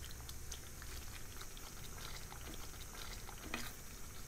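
Thick tomato-and-cashew gravy simmering in a nonstick kadai, bubbling faintly with small scattered pops, while it is stirred with a silicone spatula.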